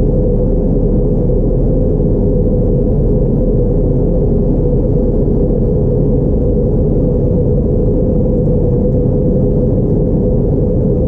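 Steady cabin drone of an Airbus A321neo in flight on descent, heard at a window seat beside the engine: a loud, even low rumble with a steady hum tone in it, unchanging throughout.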